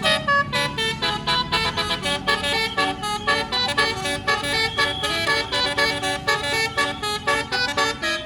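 Telolet basuri bus horn with a 24-note module playing a fast melody: a quick run of short, stacked horn notes, several sounding at once.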